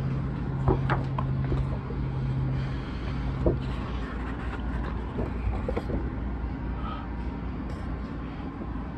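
A large paper LP booklet being held and its pages handled and turned, with scattered light rustles and taps. Under it runs a steady low hum that stops about four seconds in.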